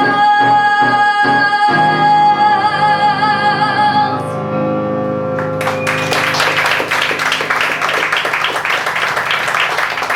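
A female singer holds the song's final note with vibrato over instrumental accompaniment, and it stops about four seconds in. A couple of seconds later an audience breaks into applause.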